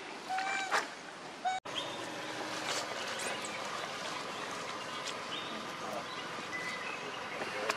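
A young macaque gives a short pitched coo call. The sound breaks off about one and a half seconds in and gives way to a steady outdoor hiss with a few faint, brief bird chirps.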